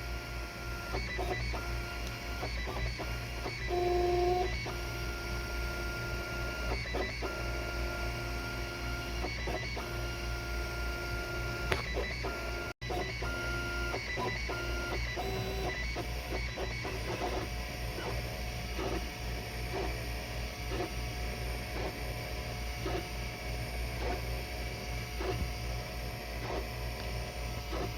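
Filament 3D printer printing: its stepper motors whine in steady tones that jump to new pitches every second or so as the print head changes moves, over a steady low hum.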